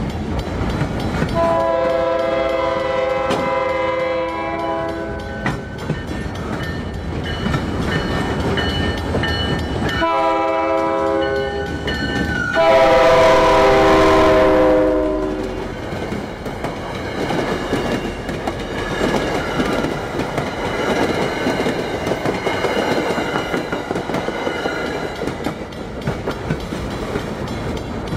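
Diesel freight locomotives, a pair of GE C40-8s, sounding a multi-tone horn in long blasts. On the last blast, about halfway through, the horn grows loud and drops in pitch as the locomotives pass close by. The rumble and clickety-clack of the train's cars rolling past follows.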